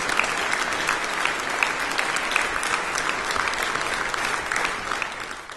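Audience applauding, a dense steady clapping that begins to fade away near the end.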